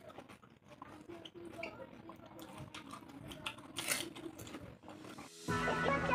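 Crunching and chewing of crisp pani puri shells, with small cracks as shells are broken open by hand. About five and a half seconds in, upbeat guitar music starts abruptly and is louder than the eating.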